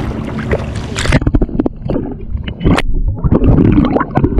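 Shallow water sloshing and splashing as a small bream is let go by hand. About a second in, the action camera goes underwater: the sound turns muffled, with gurgling and several sharp knocks.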